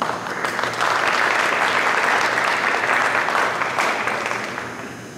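Audience applauding, a dense patter of clapping that swells quickly and fades away near the end.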